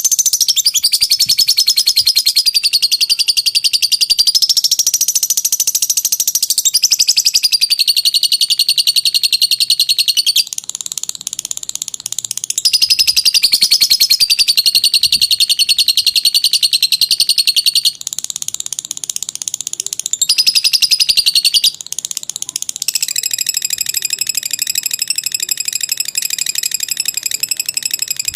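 Lovebird singing its long 'ngekek' song: a fast, high-pitched chattering trill that runs on almost without pause, dropping to quieter chatter briefly three times. This long unbroken ngekek is the song keepers play to train other lovebirds.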